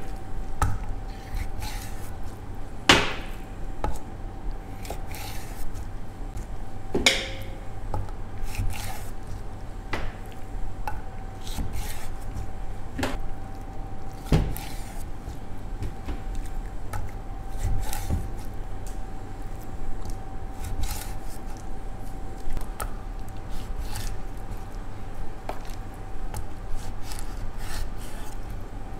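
Kitchen knife cutting raw chicken wings apart on a wooden cutting board: irregular knocks of the blade against the wood, a few louder chops among them, over a faint steady hum.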